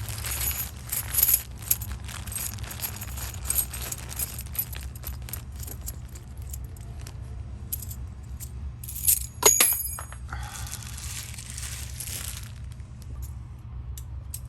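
Brass key blanks clinking and jangling as they are handled and hung on display hooks, with one short metallic ring about two-thirds of the way through. A steady low hum runs underneath.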